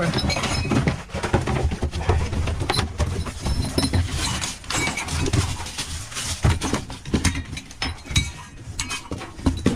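Scrap being rummaged through and handled in a dumpster: metal plumbing fittings and other debris clinking, clattering and knocking irregularly.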